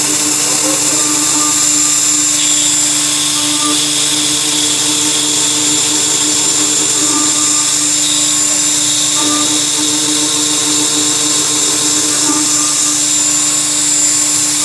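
CNC milling machine's spindle running a small end mill that cuts ports into a muzzle brake held in a rotary-axis chuck. It makes a steady machining whine, with other tones that come and go every few seconds as the cut moves.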